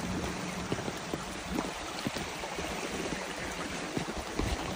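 Steady rushing noise of shallow floodwater flowing over a street, with a few soft low thumps scattered through it.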